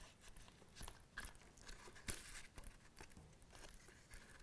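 Faint rustling and light scattered clicks of hands handling a leather case and drawing thread through saddle-stitch holes.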